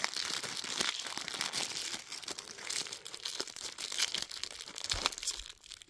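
Packaging rustling and crackling as it is handled and torn open to free a dog brush. The sound dies down near the end.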